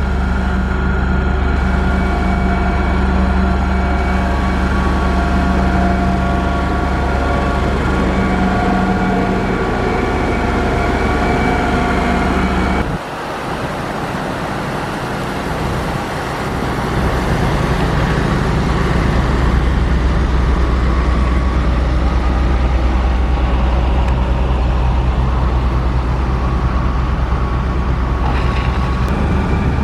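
Motor grader's diesel engine running steadily under work. About halfway through the sound drops away abruptly, then the heavy low engine rumble builds back up over a few seconds and holds steady.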